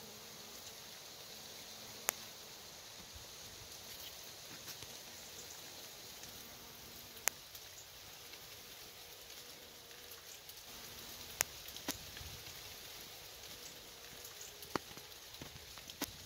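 Faint, on-and-off buzzing of honeybees flying around raspberry canes, over a steady hiss, with a few sharp isolated clicks.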